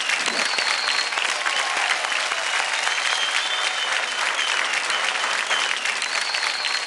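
Studio audience applauding steadily, with a few thin high whistles or cheers over the clapping.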